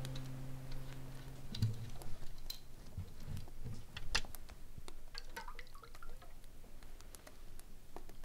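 Faint, scattered clicks and small taps in a quiet room, after the tail of guitar music dies away in the first couple of seconds.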